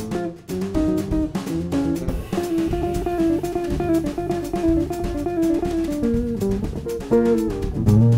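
Jazz trio playing: a hollow-body electric guitar picks a single-note melody over bass guitar and a drum kit, with a few long held notes in the middle.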